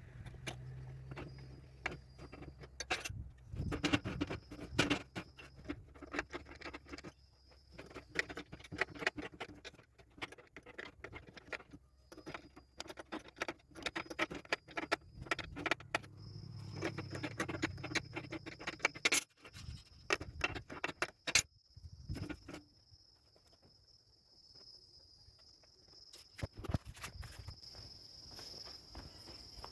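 Irregular knocks and clicks of wooden folding-chair parts being handled and fitted together. A steady high insect trill runs under them from about halfway.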